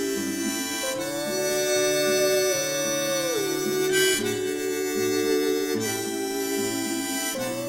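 Instrumental break of a folk-style song: a harmonica plays a slow melody of held, bending notes over a steady, rhythmic accompaniment.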